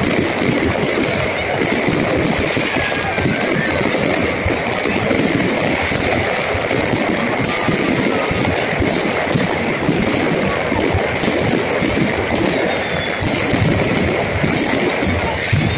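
Many fireworks and firecrackers going off at once: a dense, unbroken crackle of rapid, overlapping bangs.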